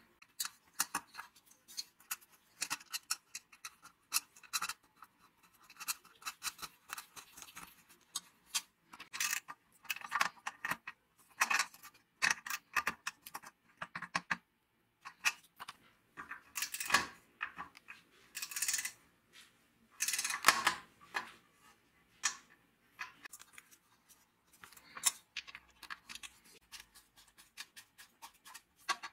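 Close handling sounds of hand tools and wiring on a small metal heater: scattered clicks, taps and scrapes as a wire is fitted, a nut is tightened with a socket ratchet and a screw is turned with a screwdriver. There are a few louder scraping clusters around the middle.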